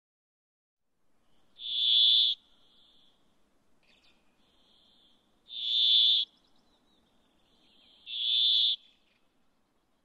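Brambling singing: three loud, long buzzing notes of steady pitch, each under a second and a few seconds apart, with fainter buzzing between them.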